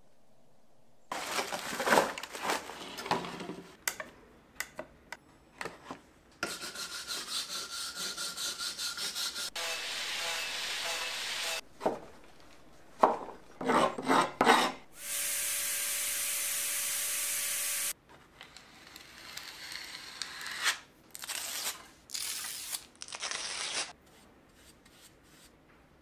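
Hand tools working an old wooden beehive box: a hive tool prying and a scraper rubbing and scraping the bare wood in bursts of strokes and clicks, including a run of quick, even scraping strokes. About midway a steady hiss runs for about three seconds.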